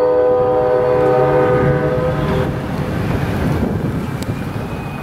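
Amtrak passenger locomotive's multi-note air horn sounding one held chord that stops about two seconds in, over a low rumble that carries on and slowly fades.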